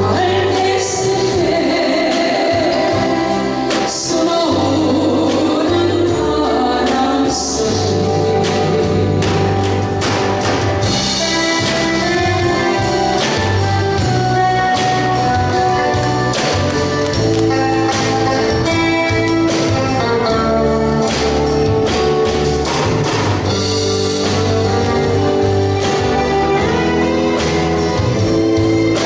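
Live band music with a woman singing a slow Korean ballad over keyboard, bass and a steady drum beat.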